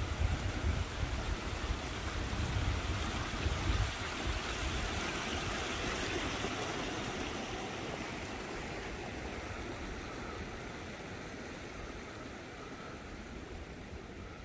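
Small mountain stream running over stones, a steady rushing that slowly fades over the second half. A low rumble sits under it for the first few seconds.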